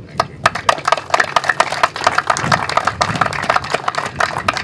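Audience applauding, many separate hand claps.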